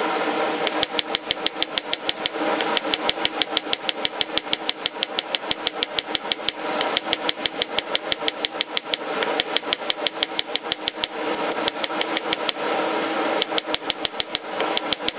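Ball-peen hammer striking a hot steel bar on an anvil in rapid, ringing blows, about six a second. The blows come in runs with brief pauses between them.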